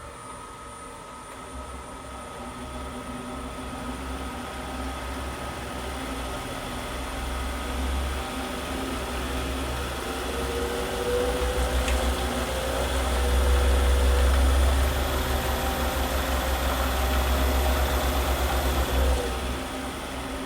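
Wood lathe running with a workpiece spinning in a steady rest, the sound of the turning building and growing louder, with a slowly rising tone in the second half. It drops off sharply near the end.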